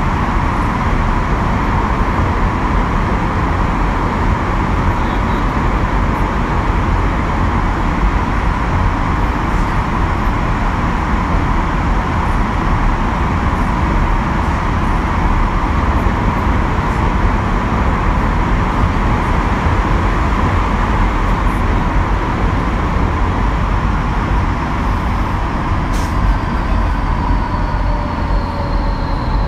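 Kyoto Municipal Subway Tozai Line 50 series electric train running at speed through its underground tunnel, heard from inside the car: a steady loud rumble of wheels on rail with a steady whine. Near the end a click is followed by slowly falling tones as the train begins braking for the next station, its Mitsubishi GTO VVVF inverter sounding.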